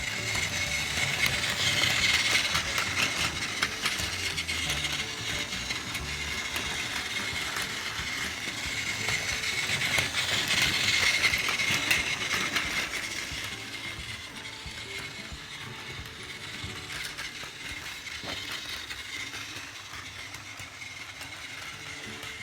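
Plarail Doctor Yellow battery-powered toy shinkansen running on plastic track: the small geared motor whines steadily while the wheels click fast over the rail joints. It grows louder twice, about two seconds and eleven seconds in, as the train passes close, then fades.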